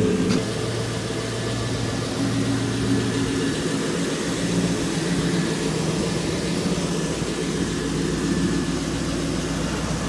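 Car engine idling steadily. A low part of the hum drops out about five seconds in.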